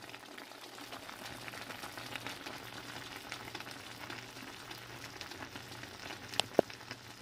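Pot of catfish stew with sliced onions simmering in broth: a faint, steady bubbling crackle, with two small sharp clicks near the end.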